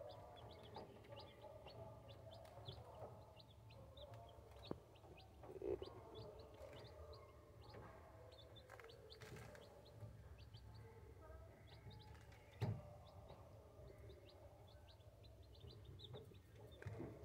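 Two-day-old chicks peeping: many short, high cheeps falling in pitch, several a second. A low steady hum lies underneath, and a couple of sharp knocks come through, the loudest about two-thirds of the way through.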